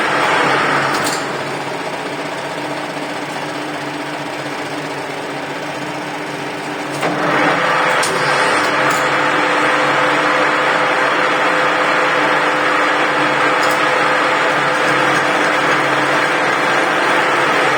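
Metalworking machine running steadily with a motor hum, quieter for the first several seconds and louder from about seven seconds in.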